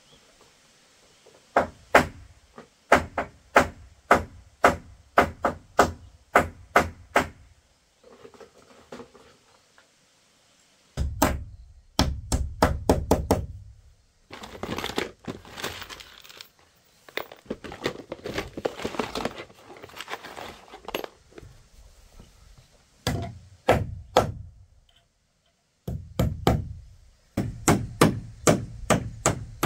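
Runs of heavy blows on wood, about two a second, each with a dull thump. In the middle they give way to a faster, rougher stretch of chopping.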